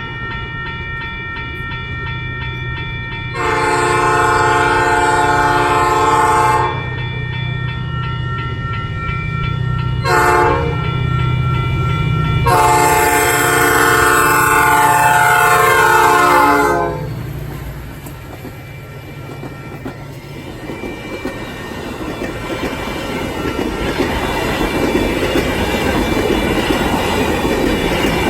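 Metra commuter train's locomotive horn sounding a long blast, a short blast and a second long blast whose pitch falls near its end. The train then runs past at speed with its wheels rumbling and clacking, the noise building toward the end.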